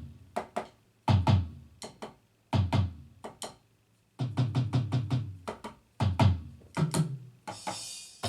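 Electronic drum kit heard through an amplifier, being test-played: short groups of deep tom and kick strokes with ringing pitched decays, including a quick run of hits in the middle, and a cymbal wash near the end.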